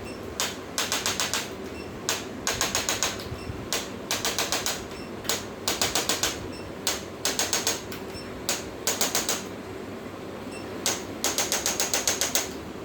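Sharp, rapid clicks in short bursts of about six, each burst often led by a single click, repeating every second or two.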